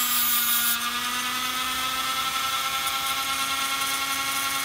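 High-speed rotary tool spinning a 3M abrasive bristle disc against a metal tube, with a scratchy hiss of contact that stops under a second in. The tool then runs free with a steady whine that rises slightly in pitch.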